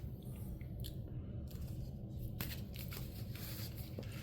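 Faint handling noises: foil booster packs rustling and tapping a few times against a table, over a low steady hum.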